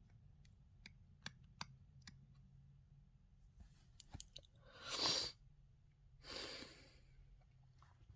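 A person sneezes once, a short loud burst of air about five seconds in, then breathes out heavily a second later. Faint small clicks come before it.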